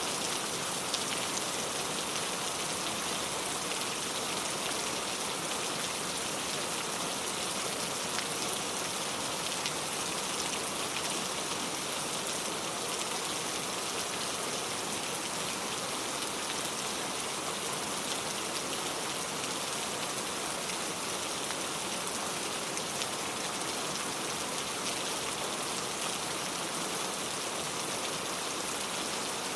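Steady rain falling, an even hiss of many drops with faint individual drop patters, holding unchanged throughout.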